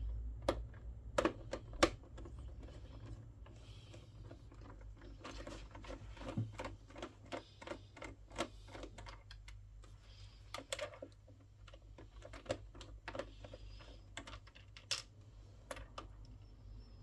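Irregular small clicks and taps of a screwdriver and the plastic casing of a PlayStation 3 being handled during disassembly, over a low steady hum.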